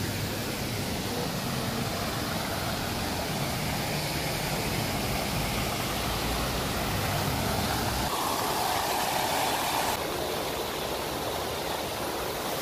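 Public fountain water splashing into its basin, a steady rushing hiss.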